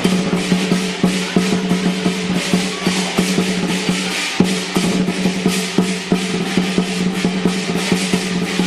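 Lion dance percussion band playing: a big drum beaten in fast, dense strokes with cymbals clashing over it, without a pause.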